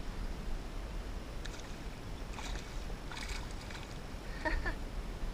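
Steady low wind rumble and water sounds around a fishing kayak, with a few short scraping or rattling noises a couple of seconds in and a brief squeak near the end.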